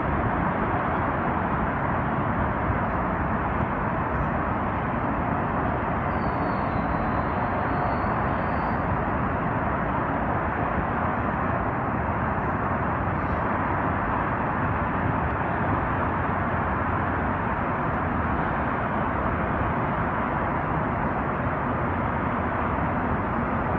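Steady, even rush of distant city traffic heard from high above, with no single vehicle standing out. A faint high whistle sounds for a couple of seconds about six seconds in.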